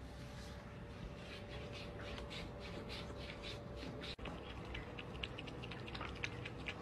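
A cat lapping water from a drinking glass: a fast, even run of faint wet clicks, about three to four laps a second.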